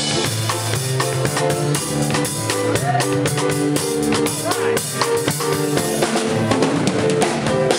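A band playing, with a drum kit (bass drum, snare and rimshots) keeping a steady beat over a bass line and melodic parts.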